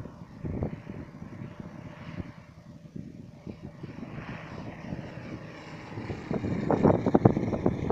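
Model Stearman biplane's engine droning as it flies past, swelling and fading as it moves, with wind buffeting the microphone and gusting harder near the end.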